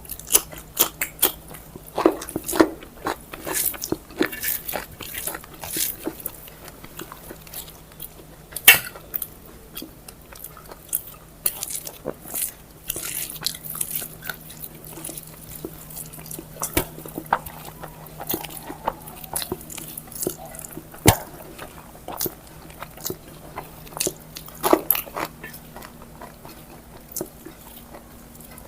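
Close-up chewing of a mouthful of rice and vegetable dishes, with irregular wet mouth clicks and small crunches.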